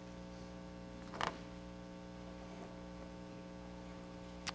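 Steady low electrical mains hum, with one brief soft sound about a second in.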